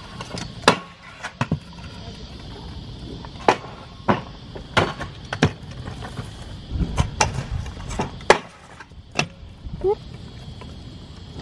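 Stunt scooters rolling over rough concrete, with a scatter of sharp clacks and knocks as decks and wheels land and hit the ground and rails. A heavier rolling rumble comes about seven seconds in.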